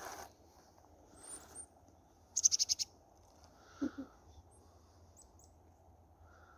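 Small wild songbirds calling: a couple of thin high chirps, then a quick loud run of about seven sharp notes, followed by a short lower sound and a few faint chirps.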